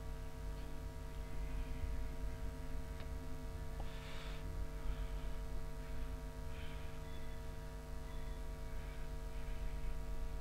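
Steady electrical hum over a low rumble, with a faint click about three seconds in and a few soft faint noises after it.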